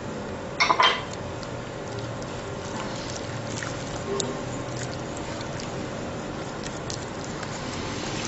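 Wire whisk stirring wet flour-and-semolina batter in a glass bowl: a steady wet stirring sound with light clinks of the whisk on the glass, and a couple of sharper clinks a little under a second in.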